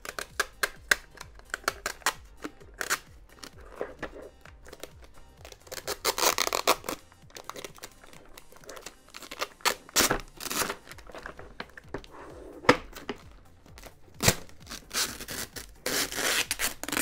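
An adhesive sticker band being peeled off a plastic IKEA Vesken cart bin, satisfyingly loud: uneven spurts of ripping and tearing, with sharp clicks and pops as the glue lets go and several longer tearing runs.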